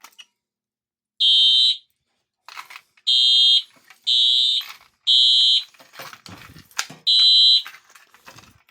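Simplex TrueAlert 4906-9227 addressable horn strobe sounding loud, high-pitched half-second horn blasts in the temporal-three evacuation pattern: three blasts about a second apart, a pause of about a second and a half, then the next group begins. Faint clicks and knocks come between the blasts.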